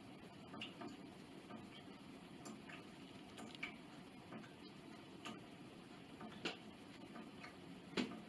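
Faint, irregularly spaced light clicks and taps over quiet room noise, with the loudest click near the end.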